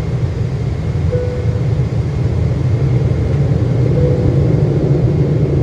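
Jet airliner engines running with a steady low rumble, with a faint short whine twice.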